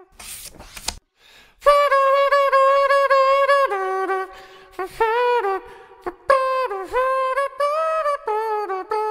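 A jazzy tune played on a horn-like wind instrument, standing for the elephant's trunk music, in short phrases of held and sliding notes. A brief hiss comes just before the tune starts.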